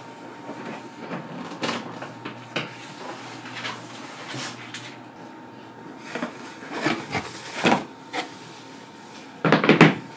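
A cardboard shoebox being opened and handled, with its contents rustled: scattered short scrapes and rustles of cardboard and paper. A louder burst of handling noise comes near the end.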